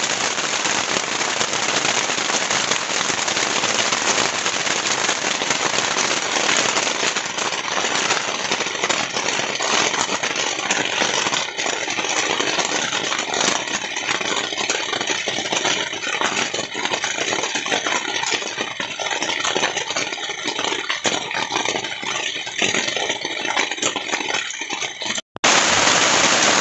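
Heavy rain falling steadily, a dense patter of many small crackling drop hits. It breaks off for an instant about a second before the end.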